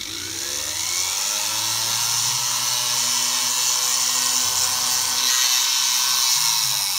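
Foot-pedal-controlled pendant drill (flex-shaft motor) with a very fine bit, whirring up to speed, running steadily while drilling a tiny pilot hole in card, then winding down near the end.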